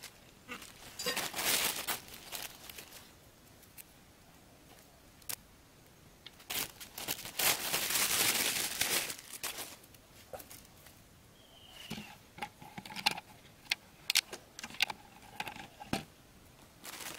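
Plastic bags crinkling and rustling as they are handled, in a short burst near the start and a longer one of a few seconds around the middle, followed by scattered light clicks and taps.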